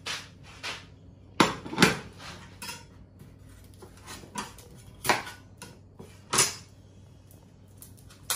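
Kitchen clatter: a ceramic plate set down and a knife knocking on a plastic chopping board, a scattering of separate knocks and clinks rather than a steady chopping rhythm.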